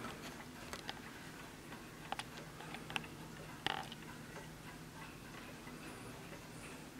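1920 German B W L Napoleon-hat mantel clock ticking quietly, with a few louder, irregular clicks and knocks, the strongest a little past halfway.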